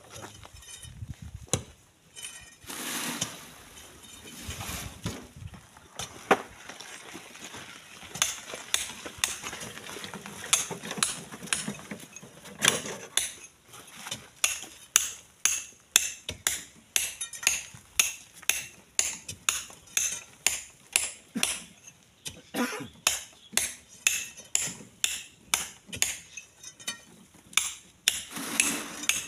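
Long iron bar jabbed again and again into a packed volcanic sand cliff, each stroke a sharp clinking knock. Loosened sand and grit pour down between strokes in the first half, and the strokes then come steadily, about three every two seconds.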